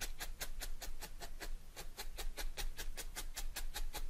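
Felting needle stabbing rapidly and repeatedly through wool fibres into a foam mat, a steady rhythm of short crisp pokes at about five a second, tacking loose wool down flat.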